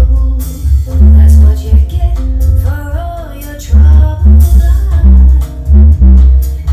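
A song with singing played back through a hi-fi system with a 10-inch Onkyo subwoofer, deep bass notes pulsing heavily under the vocals.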